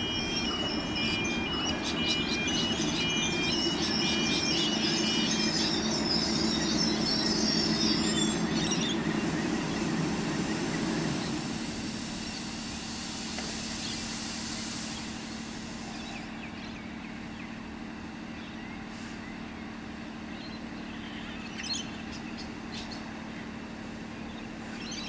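Diesel passenger railcar pulling into the station, its engine and wheel noise swelling as it comes along the platform, then easing off as it stops about twelve seconds in. It then stands with its engine idling in a steady low hum. A two-note electronic chime rings over the first five seconds.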